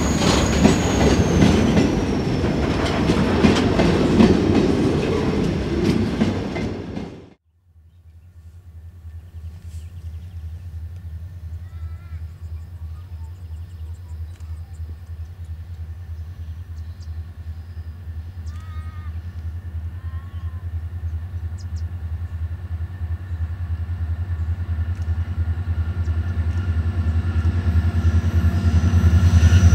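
Empty grain wagons rolling past close by with wheel clatter and a high wheel squeal that dips slightly in pitch, cut off suddenly after about seven seconds. Then a pair of L class diesel locomotives approaching: a steady low engine drone, faint at first and growing louder toward the end.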